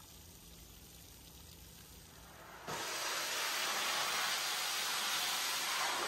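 Ruwac Flood Pro industrial wet extraction vacuum sucking standing water through its floor wand: a loud, steady hiss of air and water at the nozzle that starts abruptly about a third of the way in. Before that there is only a faint low rumble.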